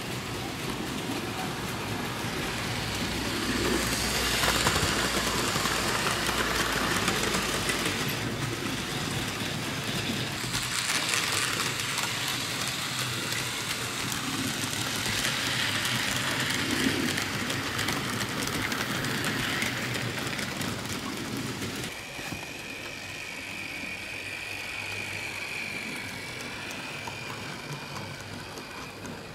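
Model trains running on a layout: metal wheels rattling along the track, swelling several times as trains pass close by, among them a Fleischmann BR 64 tank locomotive. Toward the end a steady high whine sits over a quieter rumble.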